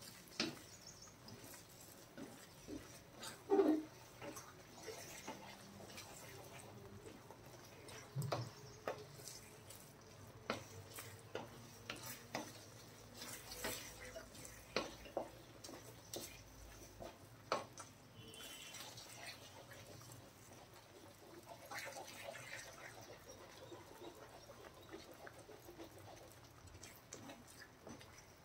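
Wooden spatula stirring and scraping thick, sticky wheat-and-jaggery halwa around a metal kadai: soft wet squelches and scattered light knocks of the spatula against the pan, with one louder brief sound about three and a half seconds in. The halwa is in its late thickening stage, cooked in ghee.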